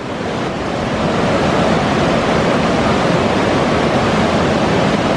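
River rapids rushing: a loud, steady wash of whitewater.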